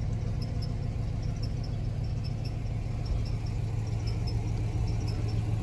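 1996 Chevrolet Impala SS's 5.7-litre LT1 V8 idling steadily, heard from inside the cabin, with a faint high ticking about three times a second.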